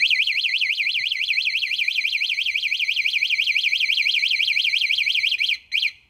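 TNT universal scooter alarm siren going off after the scooter is hit: a loud electronic tone warbling rapidly up and down, about six or seven times a second. It cuts off about five and a half seconds in, followed by one short chirp.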